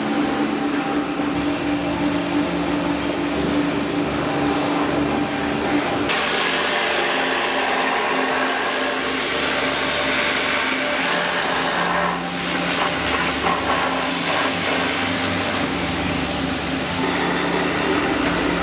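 High-pressure washer running, its jet spraying mud off a rusty brake disc and wheel hub: a steady hiss of spray over the even hum of the washer's motor.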